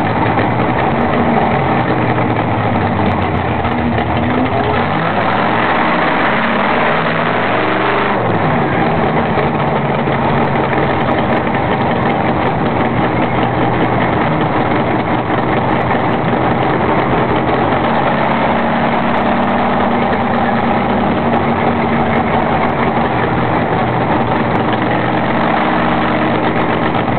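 Ford V8 race engine of about 300 hp, heard from inside the cockpit of a historic Turismo Carretera car under way. The engine note climbs in pitch as the car accelerates between about four and eight seconds in, then holds at a fairly steady pitch at speed.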